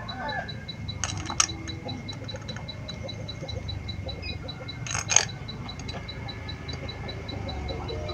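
Sharp metallic clicks and taps as the clutch adjuster cover of a Honda Astrea 800 engine is handled and refitted: a pair about a second in and a louder pair about five seconds in. A faint, steady high ticking runs underneath, about three ticks a second.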